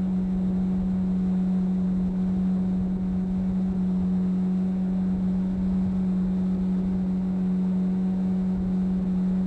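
Motorboat engine running at a steady cruise, one constant droning note, with the low rush of water and wind under way.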